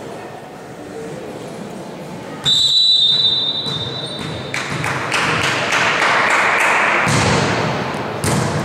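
Referee's whistle blows one steady shrill blast, about a second long and a couple of seconds in, signalling the serve in an indoor volleyball match. After it come voices shouting in the hall and sharp thuds of the volleyball being hit, the loudest near the end.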